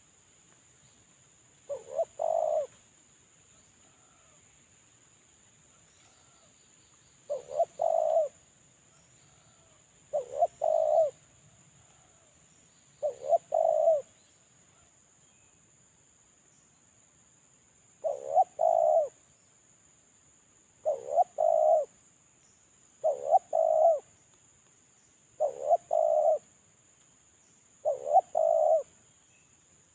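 Spotted dove (terkukur) cooing, the call of a caged decoy bird used as a lure for wild doves. It gives nine short phrases, each a quick note run into a couple of longer coos. The phrases come every two to three seconds, with a longer pause of about five seconds in the first half.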